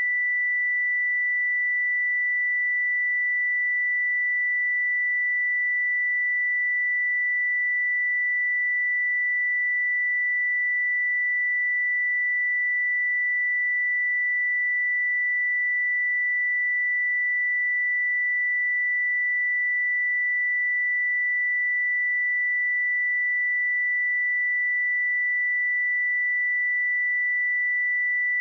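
A pure 1973 Hz sine-wave test tone, one steady high-pitched note held at constant level.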